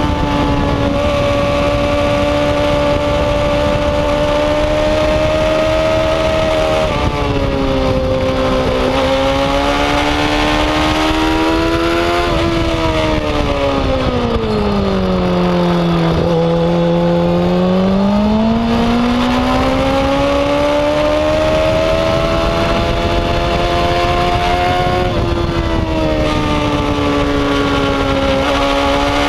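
Yamaha R6's inline-four engine running hard at high revs. The pitch holds high with a quick drop like an upshift about seven seconds in, sinks steadily to a much lower note for a few seconds about halfway through, then climbs back, with another brief drop near the end.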